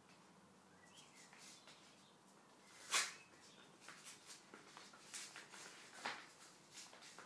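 Paper mailing envelope being torn open and handled: faint crackling and rustling, with a sharp rip about three seconds in and another about six seconds in.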